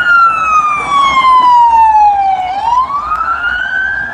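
Police siren wail: a single slow tone that falls in pitch for about two and a half seconds, then rises again.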